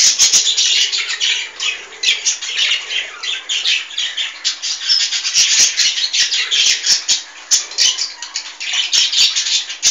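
Dense rustling and crackling of long grass stalks as a cockatiel chick climbs among them and nibbles at them, with many small sharp clicks.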